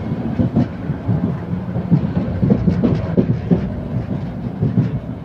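Running noise of a Talgo high-speed train heard from inside while it is moving: a steady low rumble with irregular knocks and rattles, loudest through the gangway between carriages.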